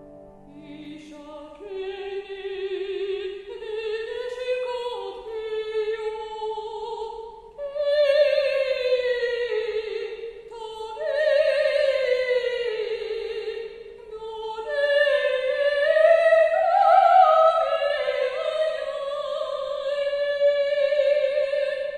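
Woman singing in a classical operatic style with piano accompaniment, holding long notes with wide vibrato. The voice swells loudest about a third of the way in, again near the middle, and most of all toward the end.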